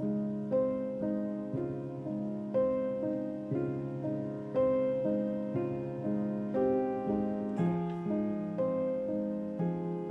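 Soft background piano music, single notes struck about twice a second, each ringing and fading before the next.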